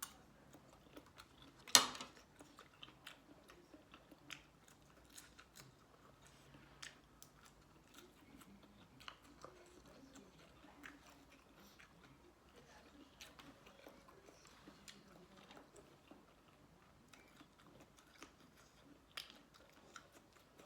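A person chewing and biting spicy seafood papaya salad with shrimp and squid: soft, irregular crunches and mouth clicks, with one sharper click about two seconds in.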